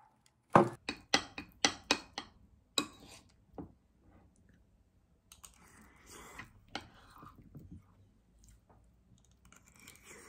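A quick run of about seven sharp clicks and taps, the first the loudest, from handling a ceramic mug and its paper packaging. Then softer, irregular scraping and clinking sounds of a meal being eaten from a plate.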